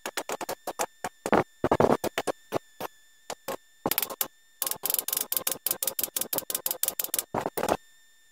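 Claw hammer striking metal on a bicycle suspension fork's steerer tube and headset parts: a run of sharp metallic knocks in quick, irregular series, at times several a second, with a few longer rattling bursts.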